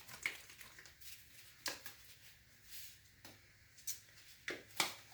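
Light clicks and taps of plastic paint bottles and a pour cup being handled, about half a dozen, the loudest two near the end, with a brief soft rustle near the middle.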